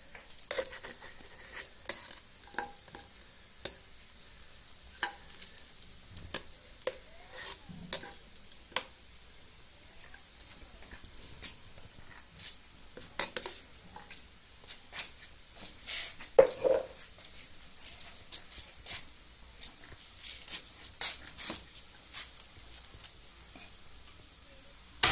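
Lumps of ghee melting with a faint, steady sizzle in a steel pot on a gas stove, with sharp clinks and scrapes of a metal spoon against the tin and pot scattered throughout.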